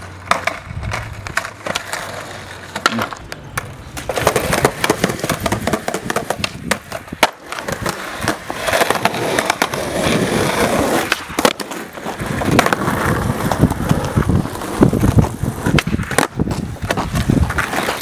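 Skateboard wheels rolling over asphalt: a continuous rough rumble broken by frequent clicks and knocks, louder from about four seconds in.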